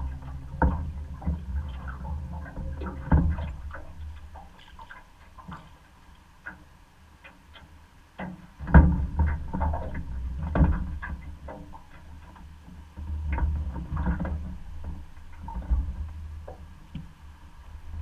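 Water sloshing against a small boat, with a steady low rumble and scattered knocks and clatters of handling on the hull, the loudest a thump about halfway through.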